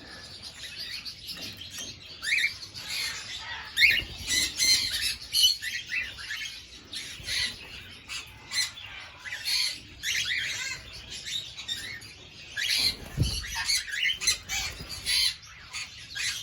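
A flock of cockatiels chirping and squawking in many short calls, with wings flapping now and then. A dull thump comes about three-quarters of the way through.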